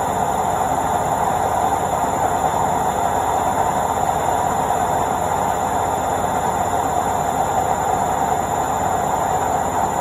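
Indesit IWC71252 front-loading washing machine on its spin cycle: the drum and motor give a steady, even whir with a fast low flutter underneath.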